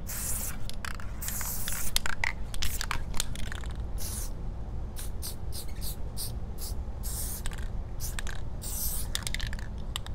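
Aerosol spray-paint can hissing in repeated bursts, some short and some held for a second or more, with quick clicks between the sprays.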